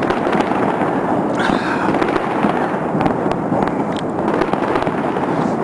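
Dense, continuous crackling of many fireworks and firecrackers going off at once across the city, with crowded small pops and cracks and no break.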